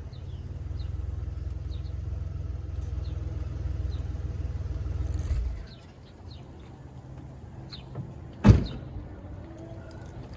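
2004 Chevrolet Impala LS engine idling with a low rumble after being revved, stopping about five and a half seconds in. A single sharp thump comes about eight seconds in.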